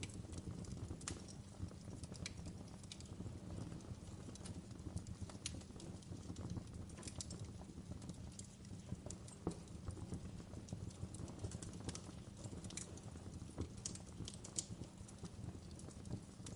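Wood fire burning in a fireplace: a steady low rumble of flames with irregular sharp crackles and pops of burning logs scattered throughout.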